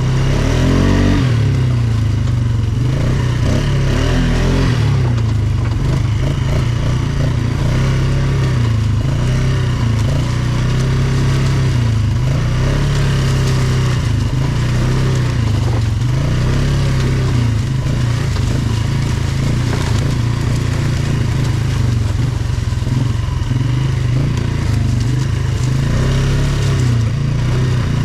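ATV engine running while riding, its pitch rising and falling as the throttle is worked.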